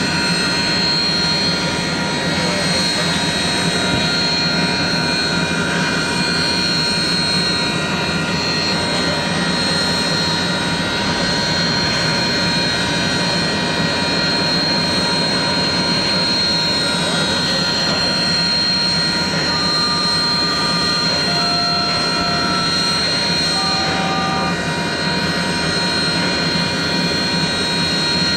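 Union Pacific 844, a 4-8-4 steam locomotive, standing still under steam: a loud, steady hiss with a high, even whine over it.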